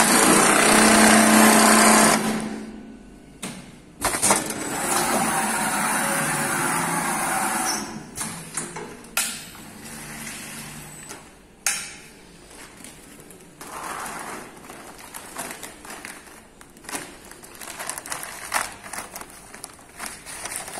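Automatic one-loop big bag sewing machine running in two loud steady spells, about two seconds and then about four seconds, as it stitches woven bag fabric. After that its mechanism gives scattered clicks and clatter.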